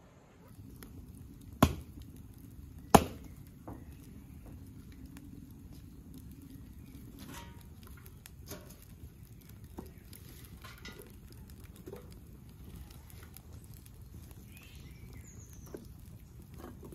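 Two sharp knocks in the first few seconds, then a wood fire burning in a stove firebox, with a steady low rumble and scattered small crackles and pops.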